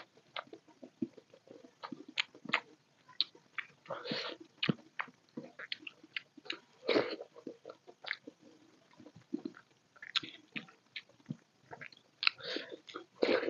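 Close-miked chewing of a mouthful of soft dal khichdi: irregular wet mouth smacks and clicks, with a few louder ones about a third of the way in, midway and near the end.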